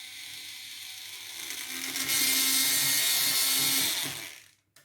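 The plastic gearing of a Jungle Master Megazord (GekiFire) toy being worked, a steady noisy whir of plastic gears that gets louder about two seconds in and stops near the end.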